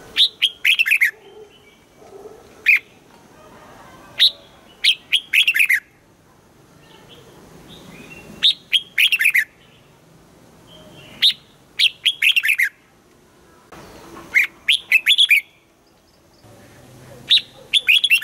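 Red-whiskered bulbul singing: short phrases of several quick notes, repeated every one to three seconds with brief pauses between them.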